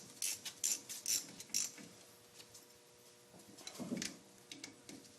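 Metal clicking of a hand tool tightening the rear brake caliper bolts, about two sharp clicks a second for the first two seconds, then a brief metallic clatter near four seconds.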